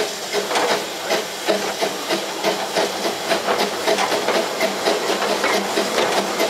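1883 Hunslet narrow-gauge steam locomotive running along the line, heard from its footplate: a steady hiss of steam with a quick rhythmic beat, about three a second.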